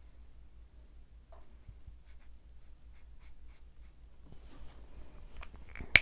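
A Copic marker rubbing across paper in faint, scratchy strokes that grow busier over the last couple of seconds. A single sharp click comes just before the end.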